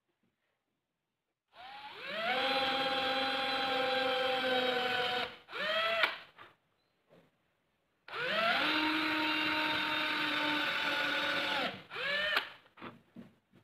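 A small electric power tool's motor run twice, each time for about three and a half seconds. Each run spins up with a rising whine, holds steady and then stops, and a short extra burst of the motor comes just after each run.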